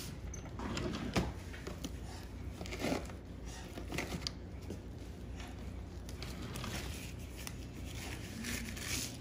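Handling noises around a cat on a veterinary exam table: scattered rustling and small knocks, a sharper one about a second in, over a steady low hum.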